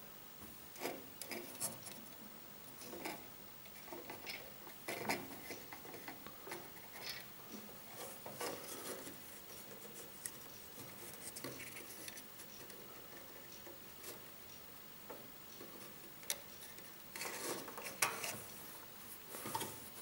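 Handling noise from a small wire-mesh live-catch mouse trap being set by hand: irregular clicks, light metallic rattles and rubbing of the wire cage and its spring-loaded door, in scattered clusters with a busier stretch near the end.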